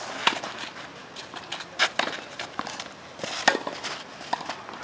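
Tennis rally on a clay court: a ball struck back and forth by rackets, three sharp pops roughly a second and a half apart, with fainter ticks in between.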